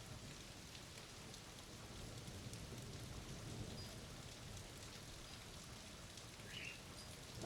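Steady rain falling in a thunderstorm, with scattered drop ticks. There is a brief rising chirp near the end.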